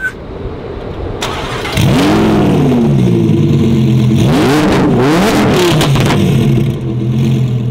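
A supercharged Lamborghini Huracán's V10 cold-starting: the starter cranks for almost two seconds, then the engine catches with a loud flare of revs. It settles, takes a couple of quick throttle blips, and drops to a steadier idle near the end.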